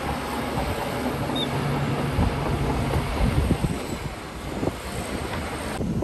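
Diesel engine of heavy earthmoving machinery running steadily, with wind rumbling on the microphone.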